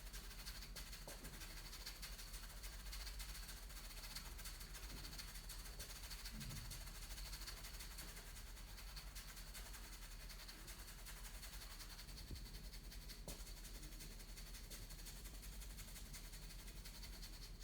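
Hairbrush stroking through hair in a fast, steady rhythm: faint, scratchy brushing strokes.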